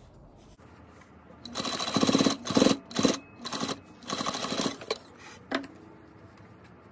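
Sewing machine stitching in several short runs, starting about a second and a half in, sewing down the mask's elastic. A couple of sharp clicks follow.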